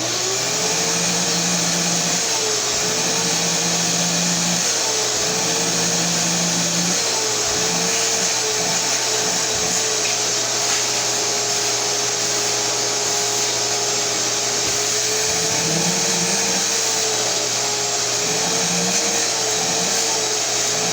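Shop-Vac wet/dry vacuum running steadily: a loud rushing noise with a high tone that dips slightly in pitch now and then, the high tone noise it makes when suctioning. A lower hum cuts in and out several times.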